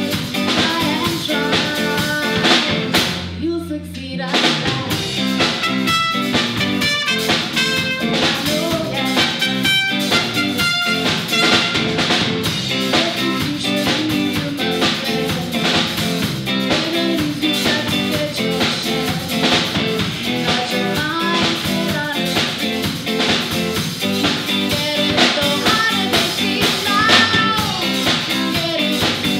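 Live reggae band playing: a female lead vocal over drum kit and electric guitars. About three seconds in, everything but a few low bass notes drops out for about a second and a half, then the full band comes back in.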